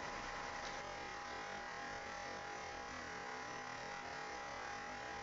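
Steady hiss with a thin, constant high-pitched whine underneath and no other events: the background noise of a low-quality recording.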